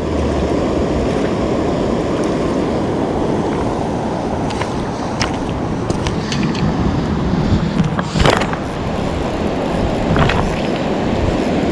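River water rushing steadily over rapids and a low weir, with a few scattered knocks and clicks, the loudest about eight seconds in.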